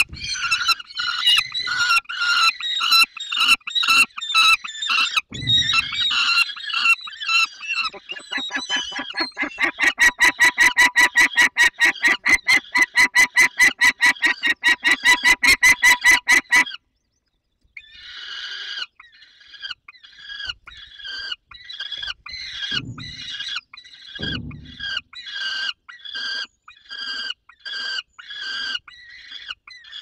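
Young peregrine falcons giving harsh, repeated begging calls at a prey delivery. About a third of the way in the calls quicken into a fast, even, loud series that stops abruptly past the middle, then resume softer at about two a second, with a few low thumps.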